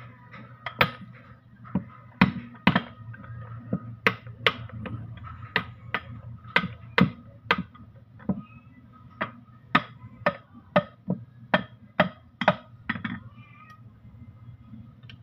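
Sharp hammer strikes on the metal housing of a Mitsubishi Canter gearbox part being knocked apart, about twenty blows at an uneven pace of one or two a second, stopping near the end.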